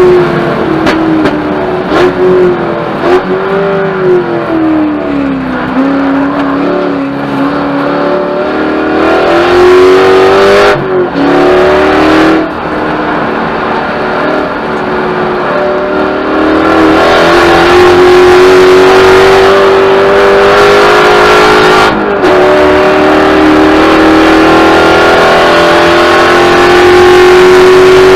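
Spec Corvette's V8 engine heard from inside the car at racing speed. Its pitch sinks a few seconds in as the car slows, then climbs again with a few brief breaks in the sound. Over the last third it pulls steadily with slowly rising pitch under full throttle.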